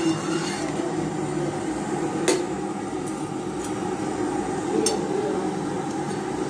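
Metal pan of watery potato curry heating on a gas stove: a steady low rushing noise with a few sharp metallic clinks.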